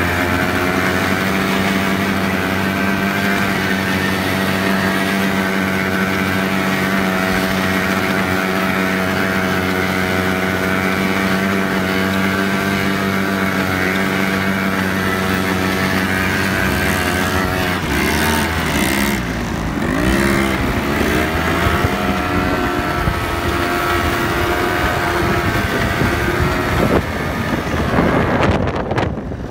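ATV engine running close by at a steady pitch. A little past the middle its note dips and rises for a few seconds as the throttle changes, then steadies; it turns rougher near the end.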